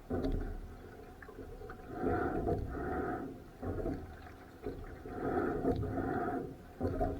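Rowing-boat strokes in a steady rhythm: a paired surge of sound, about one stroke every three seconds, over a constant low rumble.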